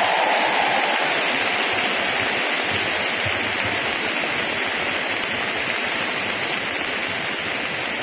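Large arena crowd applauding steadily after a performance, the clapping easing off slightly toward the end.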